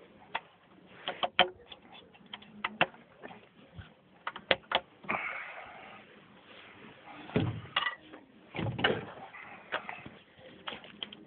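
Irregular clicks and knocks of wood and tools being handled and positioned on a sawmill jig, with two heavier thumps about seven and a half and nine seconds in.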